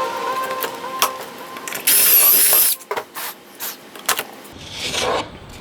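Background music fades out in the first second. About two seconds in, a cordless drill runs in one short burst with a wavering whine, followed by a few clicks and knocks.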